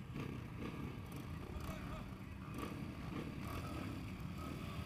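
Several dirt-bike engines running together, a dense steady rumble of motorcycles waiting at the line.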